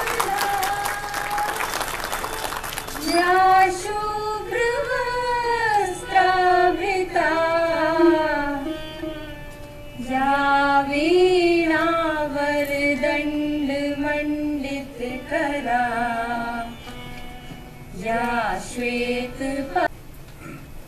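A single voice singing a slow Indian classical-style melody with long gliding, ornamented notes. Applause dies away over the first three seconds, and the song ends shortly before the end.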